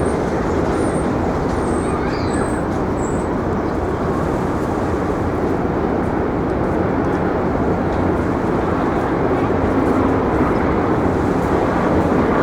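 Steady rumble of city traffic, with a few faint high chirps in the first few seconds.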